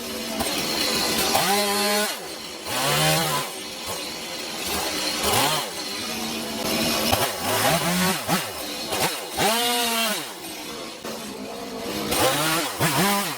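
Two-stroke chainsaw cutting into a wooden stump. The engine is revved up and let drop about six times, its pitch rising and falling with each cut.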